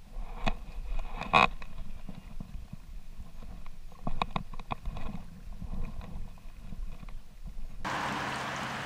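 Muffled rumble and handling noise from a fly rod and reel as a trout is played, with a few sharp clicks and knocks, the loudest about a second and a half in. Near the end it cuts abruptly to the steady rush of a stream riffle.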